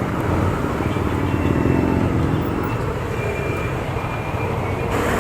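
Motor vehicle engine running steadily, a low rumble with street noise and no sudden events.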